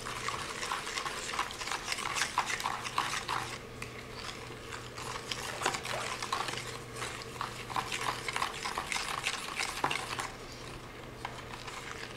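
Wooden spoon stirring a thin liquid batter of milk, oil and egg in a plastic bowl: a quick, irregular run of clicks and scrapes of the spoon against the bowl with the liquid splashing. It eases off near the end.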